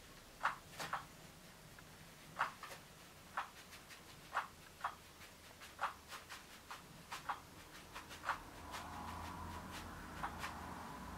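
Irregular sharp clicks and ticks, roughly one a second, from the cat pawing at a battery-powered rotary cat toy. About nine seconds in, a steady small electric motor hum starts as the toy's wand runs under its fabric cover.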